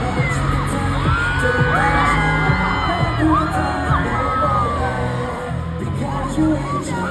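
Live pop music over a concert PA: a heavy bass beat with sung vocal lines, and scattered whoops from the crowd.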